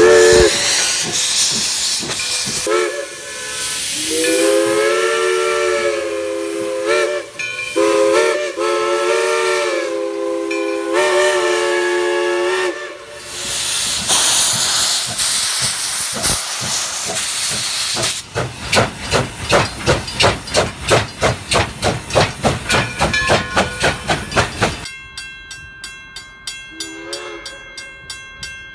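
Steam whistle of a 2-8-0 steam locomotive sounding several long and short blasts for a grade crossing over a steady hiss of steam. About halfway through, the engine's exhaust starts chuffing at about two beats a second as it works away. In the last few seconds a fast regular ringing, typical of a crossing signal bell, follows, with the whistle faint in the distance.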